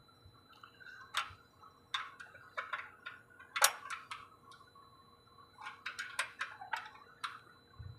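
Ratchet wrench clicking in short, irregular runs as it turns the fine-alignment bolt on a microwave radio's pole-mount bracket.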